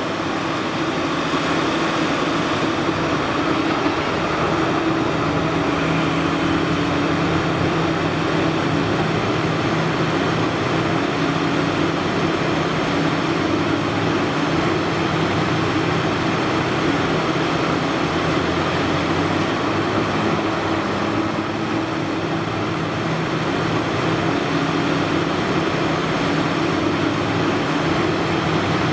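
Diesel engines of a Caterpillar 6015B mining excavator and a haul truck running steadily at an even pitch while the excavator digs and loads.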